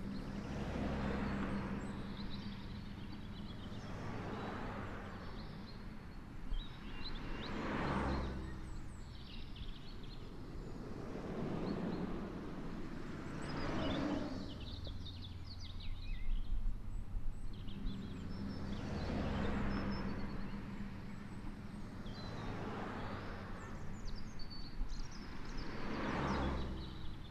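Road traffic passing, one vehicle after another swelling and fading every few seconds, with small birds chirping faintly.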